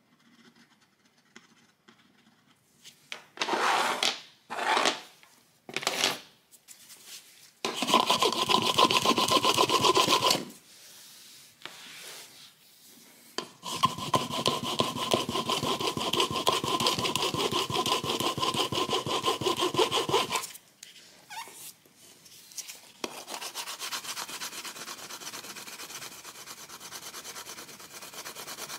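A hand-held pad rubbed rapidly back and forth over laminate flooring, smoothing the hard-wax fill in a burn mark. A few short strokes come about three seconds in, then long spells of fast rubbing, quieter near the end.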